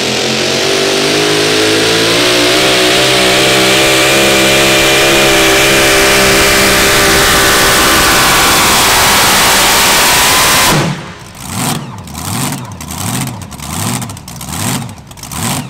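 Super modified 4wd pulling truck's engine at full throttle during a pull, holding high revs for about ten seconds. The throttle then closes suddenly and it drops to a lumpy, pulsing idle.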